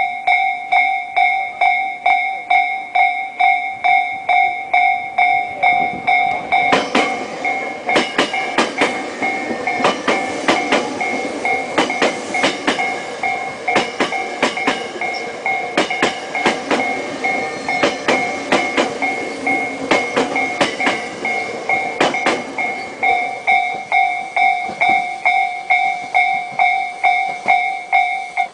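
Level-crossing warning bell ringing in a steady, regular pulse. From about 7 s to 23 s a train passes directly overhead, its wheels giving a rapid run of loud clacks over the bell, which carries on after the train has gone and stops at the end.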